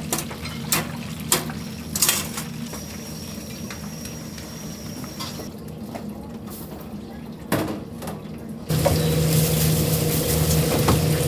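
Commercial kitchen sounds: chopsticks and utensils clinking against a metal pot as fried chicken is dipped in sauce, with one knock about seven and a half seconds in. Near the end the sound cuts abruptly to a louder steady hum of kitchen equipment.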